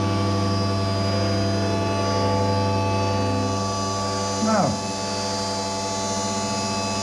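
Steady electric motor hum of the searchlight's mirror lift running, a drone of several fixed tones at an even level.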